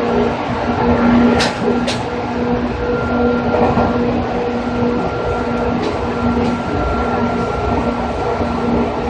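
Onboard running sound of a JR 205 series electric train with outer-fan traction motors, cruising with a steady rumble and a constant hum. Two sharp clicks about half a second apart come a second and a half in.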